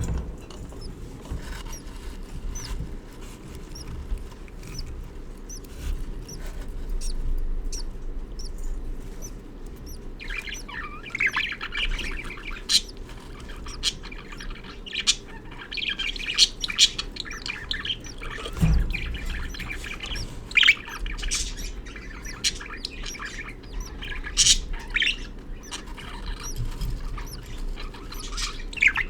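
Budgerigars chirping and chattering. The chirping starts about ten seconds in and goes on with a busy run of sharp, high chirps.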